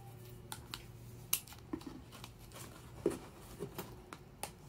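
Scissors cutting the tape that binds plastic specimen pots together, with plastic clicks as the pots are handled. About eight sharp snips and clicks come at uneven intervals.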